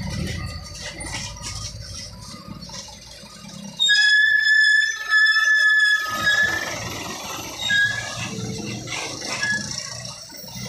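Truck brakes squealing as a truck slows into the bend. A loud, high, steady squeal lasts about two seconds and drops to a lower pitch near its end, then comes back in three short squeals.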